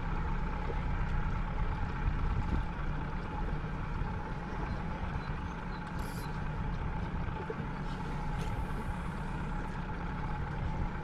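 Small boat's engine running steadily at idle, a constant hum over low rumbling noise, with one brief tick about six seconds in.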